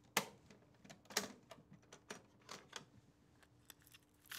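Faint, irregular plastic clicks and taps of a toy cassette recorder being handled, its cassette being taken out.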